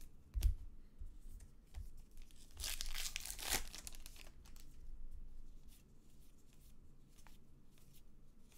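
A trading-card pack's wrapper torn open, one rustling tear lasting about a second, roughly three seconds in. Around it, soft clicks and slides of cards being handled.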